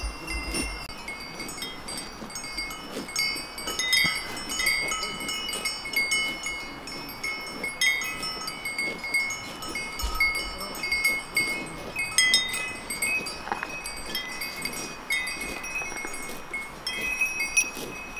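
Bells on grazing cattle clanking irregularly, several bells of different pitch ringing and overlapping.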